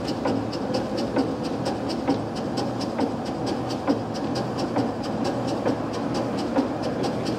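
A 40-ton steam crane's engine running as it works a lift, giving rapid, even beats over a steady low hum.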